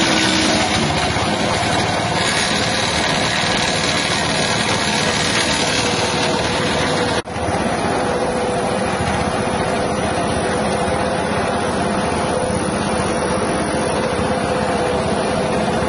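6.5 hp single-cylinder petrol engine driving a bark chopping machine, running steadily. The sound drops out for an instant about seven seconds in.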